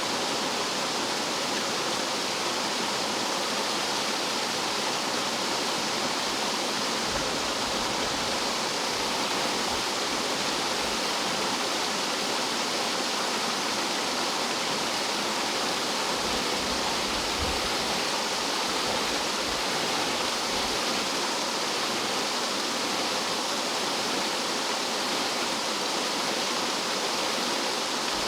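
Rough mountain stream water tumbling and falling like a small waterfall, a steady dense rushing with faint low rumbles here and there.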